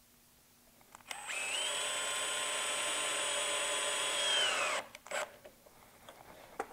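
Cordless drill/driver driving a small steel screw through a brass piano hinge into plywood. The motor starts about a second in, runs steadily for a little over three seconds, and its pitch sags just before it stops. A few light clicks follow.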